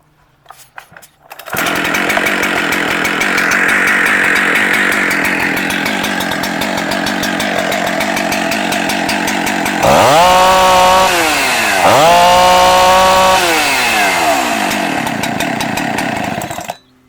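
Jonsered CS2165 two-stroke chainsaw starting up about a second and a half in and running steadily. It is revved hard twice, the pitch sweeping up and falling back each time, before the engine cuts off near the end.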